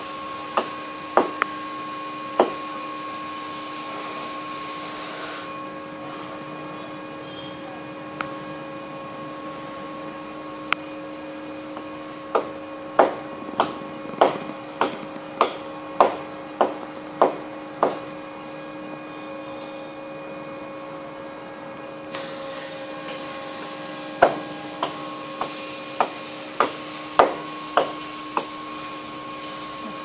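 Sharp knocks over a steady hum. There are a few knocks at the start, then a run of about a dozen at roughly one and a half a second, and another run near the end.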